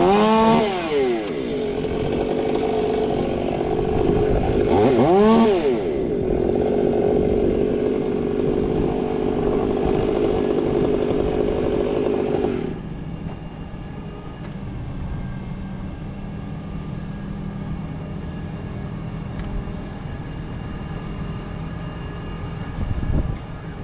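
Milwaukee battery-powered top-handle chainsaw revving up and down twice, then running steadily for several seconds before stopping about halfway through. A steady low engine hum, the crane's, runs underneath.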